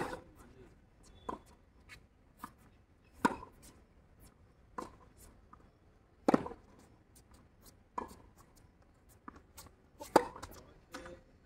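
Tennis ball struck by rackets in a rally on a hard court: a loud serve to start, then hits about every one and a half seconds, the nearer player's loud and the far player's fainter, with smaller knocks between them.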